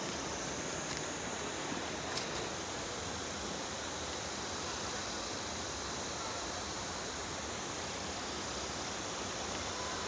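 Steady rushing of a mountain stream, heard as an even hiss of water, with one light click about two seconds in.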